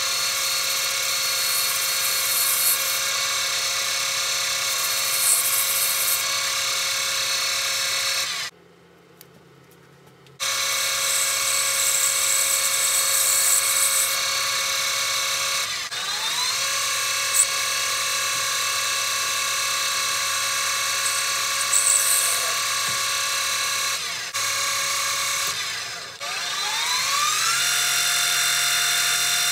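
Small metal lathe running with a steady motor whine while drilling brass bar stock. The sound cuts out for about two seconds about a third of the way in, and later dips briefly several times, each time rising back up in pitch as the spindle comes up to speed again.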